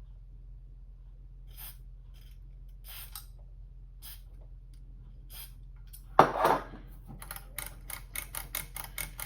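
A few light clicks, then a short hiss of DeoxIT contact cleaner sprayed from its can about six seconds in, followed by quick, even clicking, several a second, of the meter's rotary switch being turned through its detent stops.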